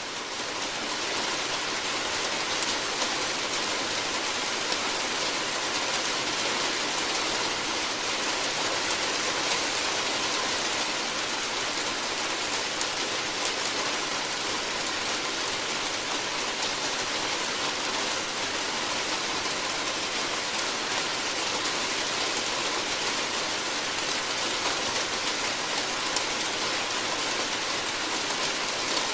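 Steady rain falling on a roof, an even patter that fades in over the first second and then holds level.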